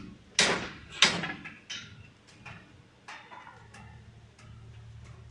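Construction-site knocking: two loud sharp bangs about half a second apart, ending a steady series of blows, then lighter scattered knocks and clicks over a faint low hum.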